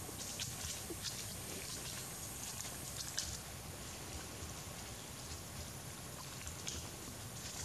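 Steady outdoor background hiss with scattered faint, short ticks and crackles.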